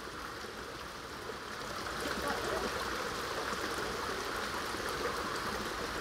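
Shallow spring-fed stream running steadily over rocks, a little louder from about two seconds in.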